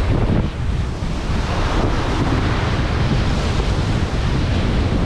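Ocean surf washing and breaking over boulders along a rocky shoreline, a steady loud rush of water, with wind buffeting the microphone as a low rumble underneath.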